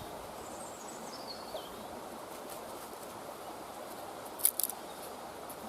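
Steady outdoor ambience with a bird call that falls in pitch in the first two seconds, and a quick cluster of sharp clicks or snaps about four and a half seconds in.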